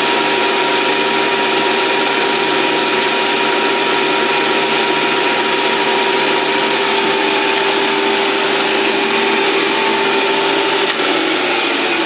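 Stanko 1K62 lathe running steadily, its geared headstock giving a continuous mechanical whine with a clattering gear noise under it. About 11 s in the pitch drops slightly.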